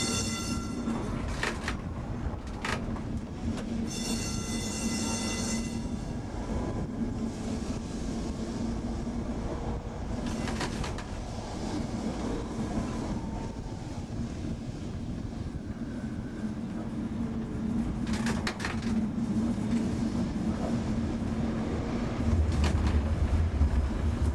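Electric Lisbon tram heard from on board as it runs along street track: a steady hum and rumble of motor and wheels on rail, with occasional sharp clicks. About four seconds in a high ringing tone with overtones sounds for under two seconds, and the rumble gets heavier near the end.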